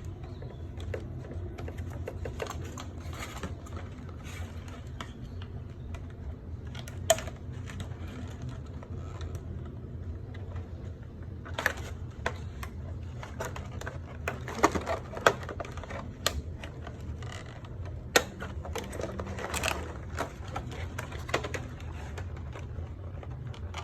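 Toy packaging being worked loose by hand: plastic and cardboard rustling, with scattered sharp clicks and snaps that come irregularly through the whole stretch. A steady low hum sits underneath.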